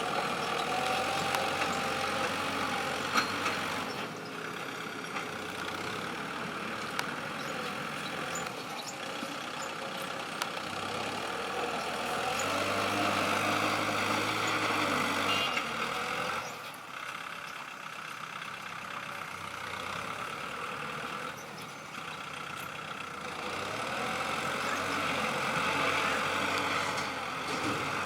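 Kobelco SK200-8 excavator's diesel engine and hydraulics working, the engine note swelling under load and easing off again in slow cycles of about ten seconds, with a rising and falling whine at each swell.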